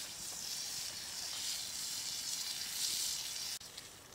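Pork jowl (tontoro) sizzling steadily in a small skillet over a campfire. The sizzle cuts off suddenly near the end, leaving a quiet background with a few faint clicks.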